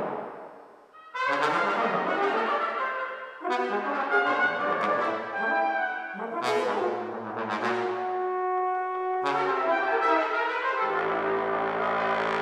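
Brass quartet playing contemporary concert music: overlapping held notes and chords that enter in separate phrases, with a brief drop almost to silence about a second in and low sustained notes near the end.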